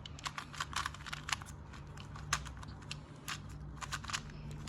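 2x2 Rubik's cube being turned quickly by hand: a fast, uneven run of light plastic clicks as the layers snap round during the final T-perm.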